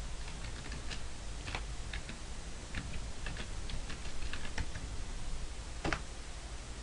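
Computer keyboard typing: a run of light, irregular keystrokes as a terminal command is typed, then one louder keystroke near the end, the Enter key that runs the command.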